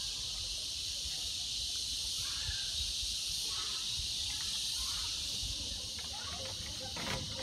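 Steady high hiss of room and outdoor ambience with faint short chirps, then a few light knocks near the end, as of footsteps on a wooden floor.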